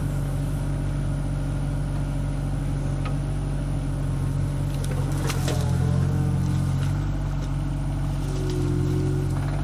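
John Deere 26G mini excavator's diesel engine running steadily as the boom and bucket move. Its note rises and grows louder about halfway through, just after a sharp knock.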